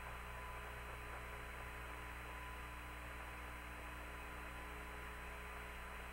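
Steady hum and faint hiss of an open air-to-ground radio channel between transmissions, with a thin steady whine in it.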